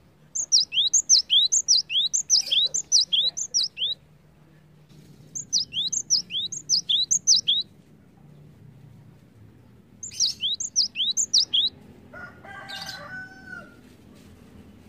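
Cinereous tit (gelatik batu) singing three phrases of rapidly repeated high notes, each note sliding down in pitch. The first phrase lasts about three and a half seconds and the later two are shorter. About twelve seconds in, a lower, different call sounds briefly.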